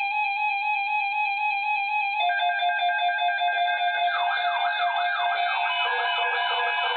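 Electronic siren and alarm tones layered together: a steady, slightly wavering tone, joined by a second steady tone about two seconds in, then rapid repeated rising-and-falling siren sweeps from about four seconds in.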